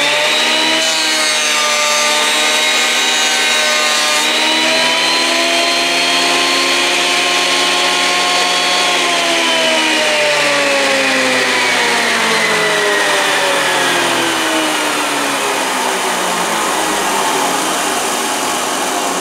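Hitachi thickness planer running at full speed with a high whine as a board is fed through its cutter head. About nine seconds in, the whine starts to fall slowly and evenly as the machine winds down.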